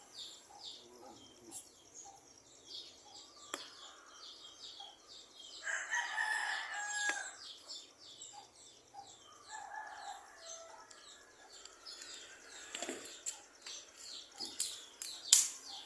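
A rooster crowing, its longest crow about six seconds in, over a steady run of short high chirps. There are a few sharp knocks, the loudest near the end.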